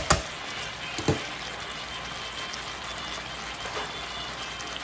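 Chicken strips with onion and green pepper sizzling and bubbling in their juices in an electric skillet, a steady hiss. Metal tongs clack against the pan twice at the start and once more about a second in.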